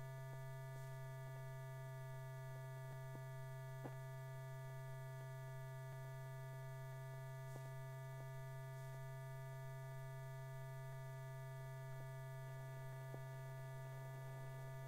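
Low, steady electrical hum with a few faint clicks: the background noise of an old film soundtrack.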